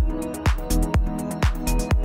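Electronic dance music with a steady kick drum about two beats a second and crisp hi-hat-like ticks between the beats.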